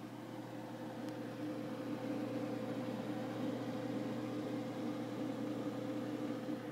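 Small ventilation fan running steadily in a grow box, a constant hum and whir that grows a little louder about a second in.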